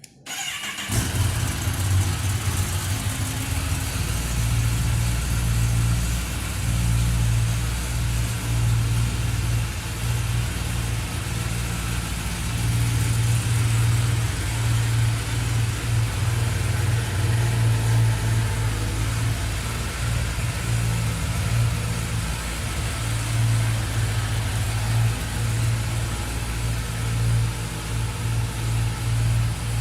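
A 2022 Kawasaki ZX-10R's 998 cc inline-four engine idling steadily through its stock exhaust. The engine sound comes in abruptly at the very start.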